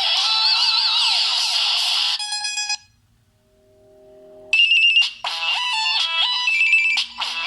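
Samsung Galaxy S2 ringtones playing in turn. One electronic ringtone ends about two seconds in with a short fading tail, there is a pause of about a second and a half, and a different melodic ringtone starts about four and a half seconds in.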